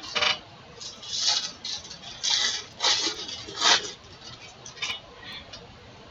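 Baseball trading cards being handled by hand: a string of short, papery rustles and swishes as cards slide over one another and are flipped through.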